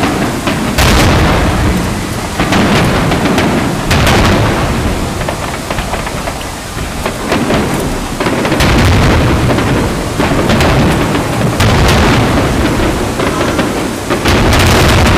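Aerial fireworks shells bursting in quick succession: about five loud booms that echo on, every three seconds or so, with a dense crackle and rumble of smaller bursts between them.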